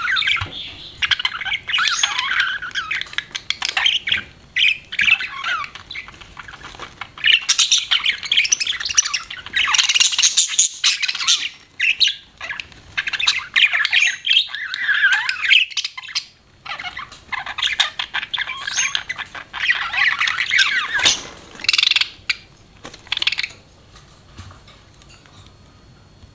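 Budgerigar chirping and chattering in busy runs of quick, high chirps and short warbles, broken by brief pauses, trailing off near the end.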